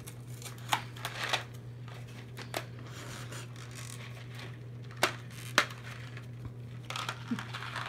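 Small cardboard candy box (Nestlé Buncha Crunch) being torn open by hand: a series of short, sharp rips and snaps as the paperboard top is pulled apart, the loudest about five and a half seconds in, with some rustling near the end. A steady low hum runs underneath.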